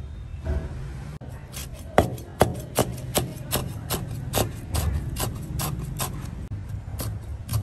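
Repeated rasping strokes, about two and a half a second, starting a little over a second in.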